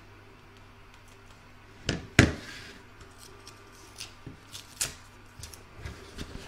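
Hand handling of a plastic embroidery hoop, fabric and tape on a cutting mat: two sharp knocks about two seconds in, then lighter taps, clicks and rustles.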